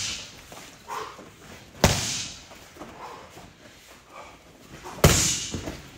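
Two kicks striking a padded 20/20 Armor electronic scoring vest, about three seconds apart, each a sharp slam with a short echo in the room.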